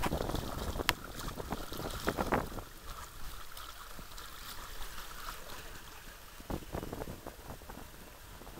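Wind buffeting the camera microphone in uneven gusts, strong for the first couple of seconds, then easing, with another short gust late on.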